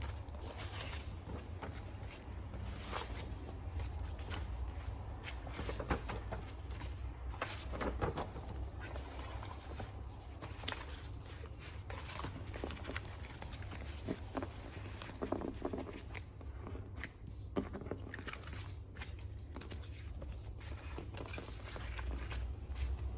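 Hands handling stationery packaging: irregular rustling, tearing and scraping of paper and plastic, with occasional sharp clicks, over a steady low hum.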